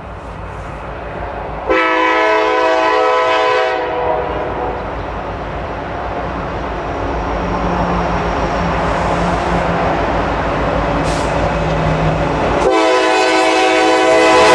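Multi-chime air horn of the lead CN EMD SD70M-2 locomotive sounding two blasts: one of about two seconds, about two seconds in, and another starting near the end. Between them the diesel locomotives and freight train rumble, growing louder as they roll closer.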